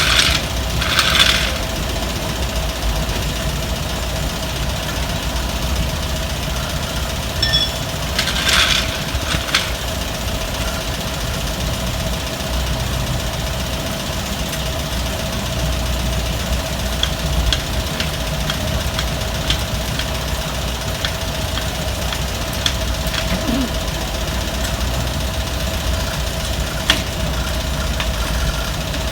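Car engine with a carburetor idling steadily while the carburetor is being adjusted, after a repair to its cold-start plunger. There are short hissing bursts right at the start and again about eight and a half seconds in.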